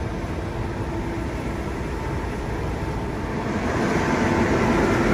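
Steady low rumble of a van driving slowly, heard from inside its cab, with a faint steady hum over it; it grows a little louder near the end.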